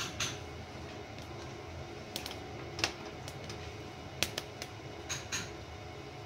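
Softwood fire crackling inside the closed firebox of a Newmac wood stove: irregular sharp pops about a second apart over a steady low rumble.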